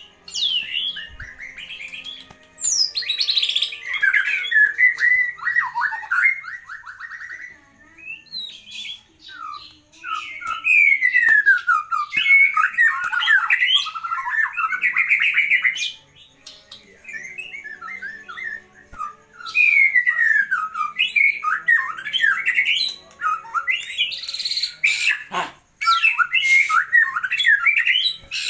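White-rumped shama (murai batu) singing: fast runs of varied whistled notes and falling glides, in long bursts separated by pauses of a few seconds.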